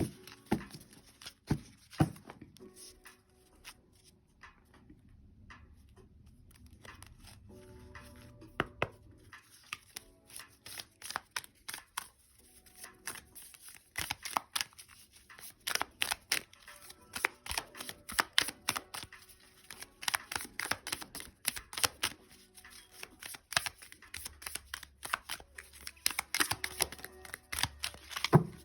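A deck of oracle cards shuffled by hand: quick papery clicks and slaps, sparse at first and coming thick and fast from about halfway through, over soft background music.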